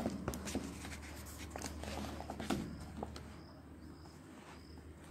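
A paper textbook page being turned and the book handled, with rustling and a few small clicks, mostly in the first three seconds.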